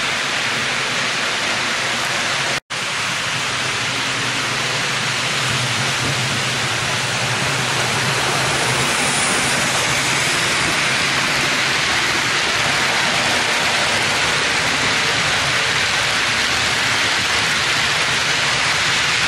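HO-scale model double-stack intermodal train rolling along the track: a steady rushing noise from the wheels on the rails, briefly cut off about two and a half seconds in, then a little louder from about eight seconds on.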